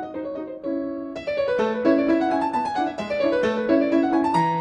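Background music: a keyboard instrument, piano-like, playing a brisk run of notes that grows fuller and brighter about a second in.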